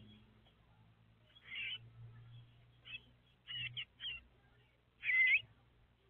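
Sayaca tanagers giving a series of short, high calls, about six spread across a few seconds, with the loudest call near the end.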